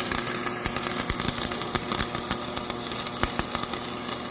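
Electric arc welding: a steady crackling hiss full of sharp pops, with a faint hum underneath.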